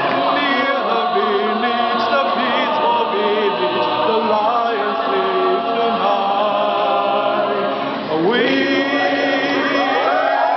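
Mixed chamber choir singing a cappella, a chant-like song in several voice parts. About eight seconds in the voices briefly drop, then swoop upward into a new phrase.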